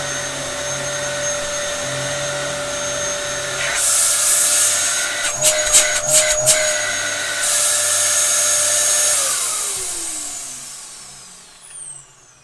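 Dyson DC07 Animal upright vacuum cleaner running with a steady high whine. About four seconds in, a loud rushing hiss joins it for a few seconds along with several knocks. The motor then winds down with a falling whine and dies away near the end.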